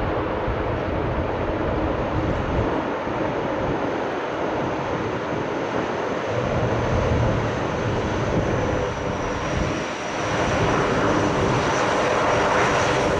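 The four turboprop engines and propellers of a USAF C-130 Hercules running, a steady heavy drone with a thin high whine that grows louder over the last few seconds. Wind buffets the microphone now and then.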